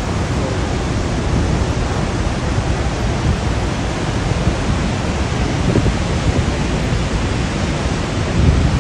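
Steady, even rush of water at Niagara Falls, pouring over the falls and churning in the basin below.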